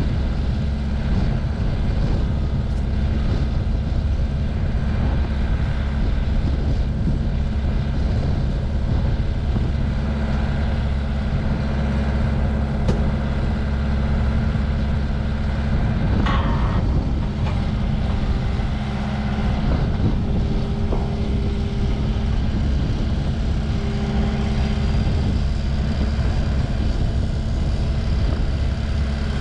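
A machine's engine running steadily under load while its hydraulics extend a truss crane boom, with a brief squeal about sixteen seconds in.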